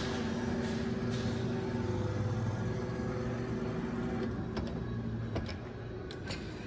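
Claw machine gantry motor running with a steady hum, which drops about four seconds in, followed by several sharp clicks as the claw works.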